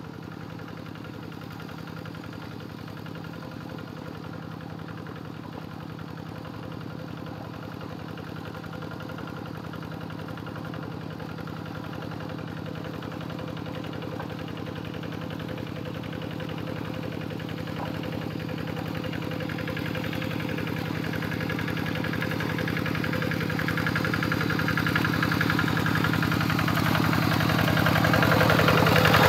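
Two-wheel hand tractor's single-cylinder diesel engine running steadily as it drives its iron cage wheels through a flooded rice paddy, growing steadily louder as it approaches.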